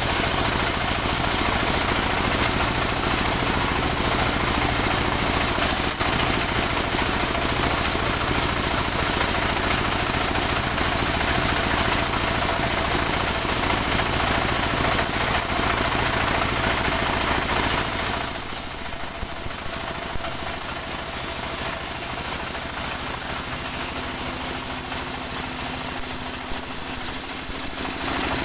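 Engine-driven portable bandsaw mill sawing a slab of saman (rain tree) wood: the engine runs steadily under load with a high hiss from the blade. About two-thirds of the way through the sawing noise eases while the engine keeps running.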